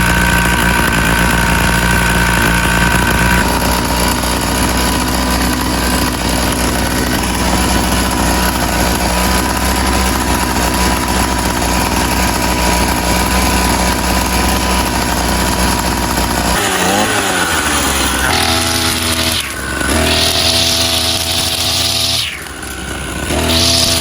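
Two-stroke brush cutter engine with a 45 mm bore, running steadily at low speed just after being pull-started. About two-thirds of the way through its pitch rises and it is revved to high speed in long surges, dropping back briefly twice.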